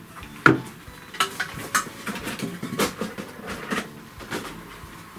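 Hard plastic play-kitchen parts knocking and clicking as they are handled and set down: one sharp knock about half a second in, then a string of lighter taps and clicks.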